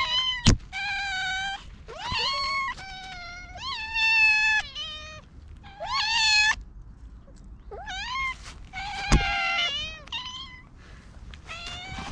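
Several hungry cats meowing over and over, their calls overlapping and bending in pitch, as they beg for food. A sharp knock sounds twice, once near the start and once about nine seconds in.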